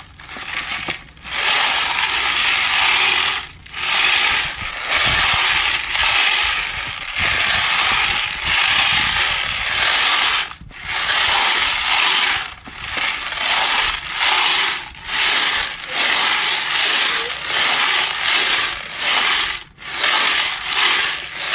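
Frankford Arsenal rotary media separator turned by hand crank, its drum full of 9mm brass casings and stainless steel tumbling pins rattling as they tumble, the pins falling out through the slots. The rattle comes in surges, about one a second later on, with each turn.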